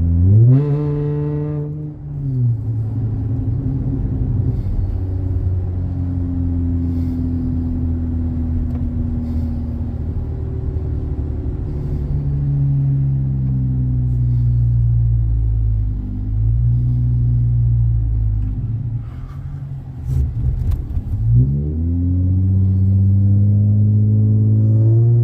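Dodge Challenger's exhaust through MagnaFlow Magnapack mufflers while driving. The revs climb sharply at the start, drop with a shift about two seconds in, then settle into a steady drone that drifts gently in pitch. The revs climb again a little past twenty seconds.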